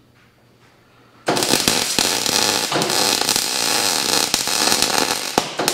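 Electric arc welding. The arc strikes about a second in, crackles and hisses steadily for about four seconds, then breaks off just before the end. The arc was held too far from the work, which the welder calls a terrible weld.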